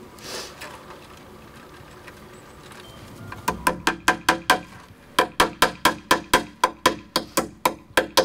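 Hammer driving nails into wood: quick, even strikes about four a second, each with a short ring, beginning about three seconds in and going on in runs with brief pauses.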